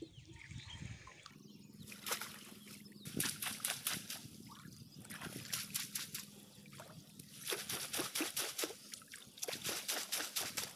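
Water splashing and sloshing as a collapsible ring trap net is hauled up and shaken through shallow river water, in two spells of rapid splashes, one about two seconds in and another in the second half.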